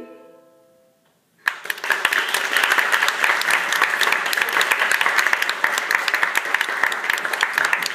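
The last ukulele chord rings and fades out, then about a second and a half in the audience breaks into applause.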